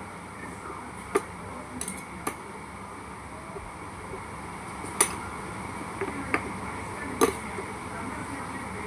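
A handful of sharp clicks and taps, about five spread over several seconds, over a steady background hiss: a utensil knocking against a container while air-dry clay, water and moisturizer are mixed into slime.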